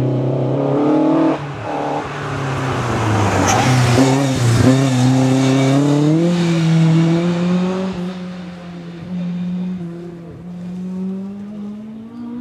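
Rally car engine revving hard through a bend, its pitch climbing and dropping with gear changes. It is loudest as the car passes, about three to seven seconds in, then fades as it drives away.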